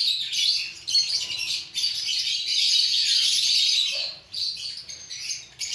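A flock of caged lovebirds chattering: dense, continuous shrill chirping from many birds at once, thinning briefly about four seconds in.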